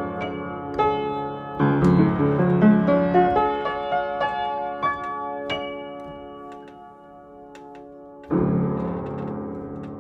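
Piano playing the closing bars of a song, notes and chords ringing and dying away. A final low chord is struck a little past eight seconds in and left to ring out.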